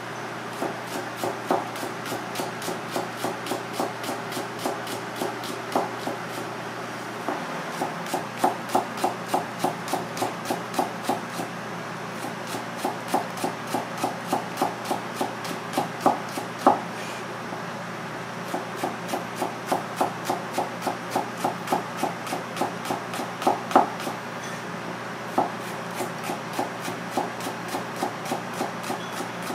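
Chef's knife finely shredding cabbage on a plastic cutting board: a steady, even rhythm of blade knocks at about three strokes a second, with a few brief pauses and several louder knocks.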